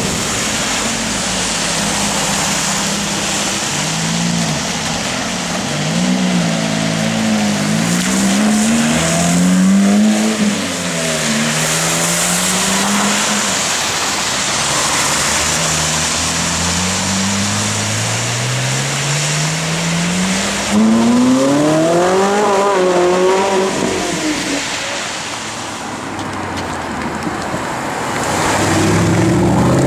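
Supercar engines revving and accelerating across several clips, among them a Ferrari 458 Italia's V8. The engine note climbs and drops again and again, with one long rising pull about halfway through.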